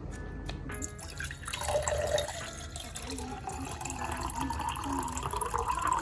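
Water poured in a stream into a tall drinking glass, starting about a second in. Under the splashing, a tone rises steadily in pitch as the glass fills.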